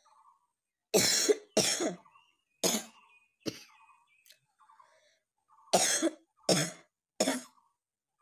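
A person coughing in two bouts: four coughs about a second apart, then, after a pause of about two seconds, three more.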